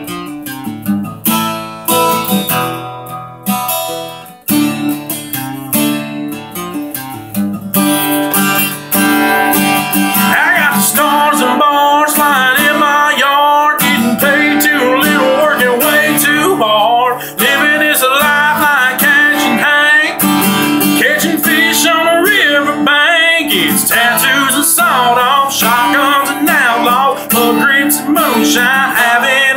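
Solo acoustic guitar playing an instrumental break: sparse picked and strummed chords with short gaps, then from about eight seconds in louder, steady strumming with a wavering melody line over it.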